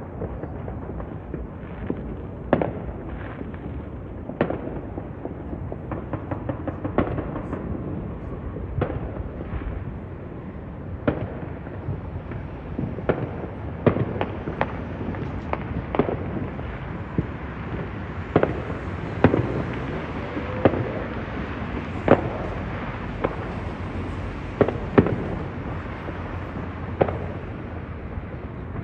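Fireworks display: shells bursting in an irregular, unbroken series of bangs, often a second or two apart, over a continuous crackle and rumble. The loudest bangs come in the second half.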